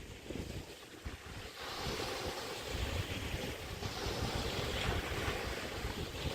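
Chesapeake Bay waves washing onto the beach, with wind buffeting the microphone. A wave surges in about a second and a half in and another near four seconds.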